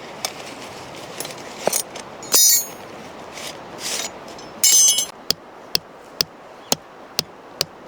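Metal objects clinking and ringing in two short clatters, then a steady run of sharp taps about two a second.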